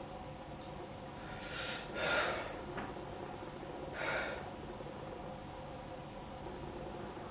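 A man breathing heavily: a long, noisy breath about a second and a half in and a shorter one about four seconds in. Behind them, a steady high chirring like crickets.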